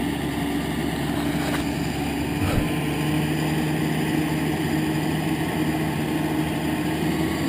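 Muscel M461 4x4's engine running at steady revs with the vehicle bogged in mud, a steady drone that lifts a little about two and a half seconds in.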